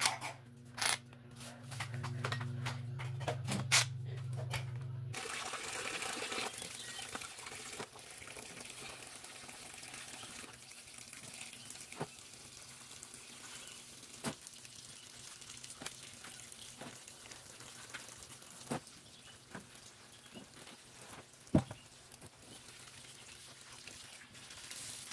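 Water running from a tap into a concrete laundry sink while clothes are handled in it, with a few scattered knocks. It starts about five seconds in; before that there is a steady low hum with several clicks.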